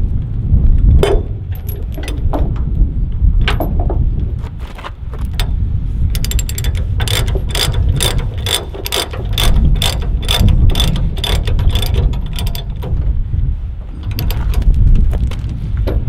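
Ratchet chain binder cranked to tighten a tie-down chain: a fast, even run of ratchet clicks, about four a second, through the middle. A few separate clinks of chain come before it, over a steady low rumble.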